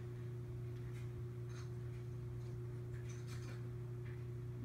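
Quiet room tone: a steady low electrical-sounding hum with a few faint, brief soft sounds.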